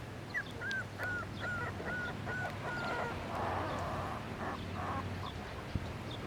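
Puppy whimpering: a run of short, high whines, about three a second, then a rougher, noisier cry lasting about two seconds.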